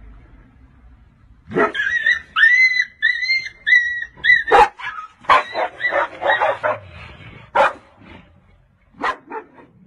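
A dog giving a quick run of about seven short, high-pitched cries, followed by rougher, harsher calls and a few short sharp ones near the end.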